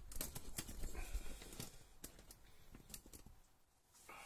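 Handling noise from a phone camera being moved and set in place: scattered light clicks and rubbing over a low rumble, thinning out to near silence shortly before the end.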